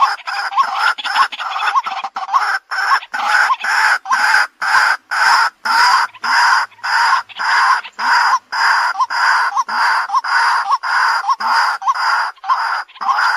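White-breasted waterhen calling: a loud, rhythmic series of short harsh notes repeated a little over twice a second, without a break.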